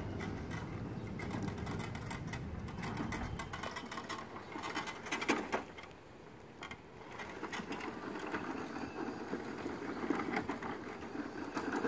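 Electric drive gearmotors of a radio-controlled lawn mower whirring, with quick rattling clicks as it drives and pivots on small front swivel casters over grass. It briefly goes quieter about halfway through.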